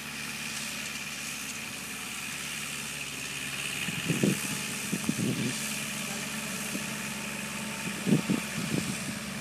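Kubota L5018 4x4 diesel tractor engine running steadily at a distance while working a field, with a few short louder bumps about four, five and eight seconds in.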